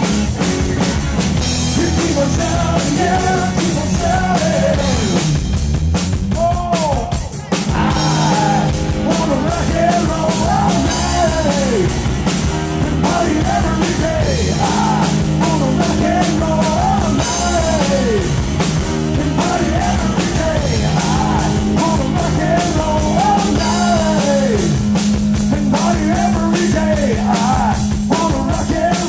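Live rock band: electric guitar and drum kit with a man singing lead vocals, briefly dropping away about seven seconds in before coming back in.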